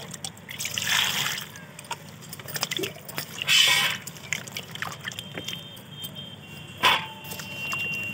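Hands washing eggplants and tomatoes in a steel bowl of water: irregular splashing and sloshing with small knocks, the loudest splashes about a second in, midway and near the end.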